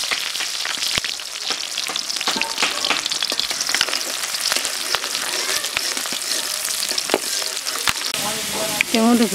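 Chopped onions sizzling as they fry in hot oil in a metal wok, with a steady hiss. A metal spatula stirring them scrapes and clicks against the pan now and then.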